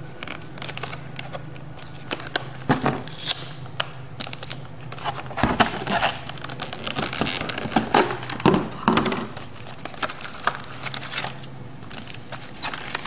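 A clear plastic blister pack being pried open and handled: irregular crackling, crinkling and snapping of the stiff plastic, busiest in the middle.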